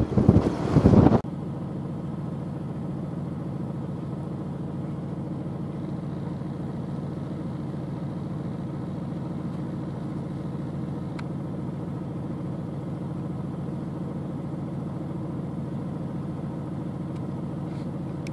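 Vehicle driving on a dirt road, a loud rumble that cuts off suddenly about a second in. A steady low engine idle follows.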